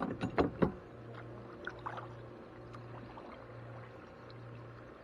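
A few sharp knocks against a kayak hull in the first second, then soft water sounds from the kayak moving on the creek, over a low steady hum.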